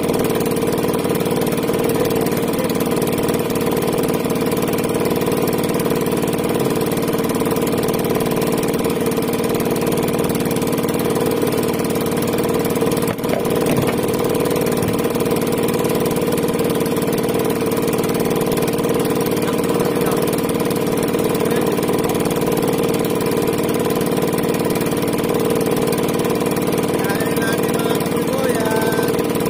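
A small engine running steadily at an unchanging speed, a constant hum.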